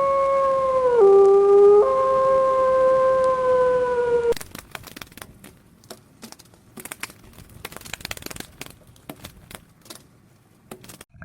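Dog howling: one long held howl that dips briefly in pitch and then cuts off about four seconds in, followed by a scatter of faint clicks and knocks.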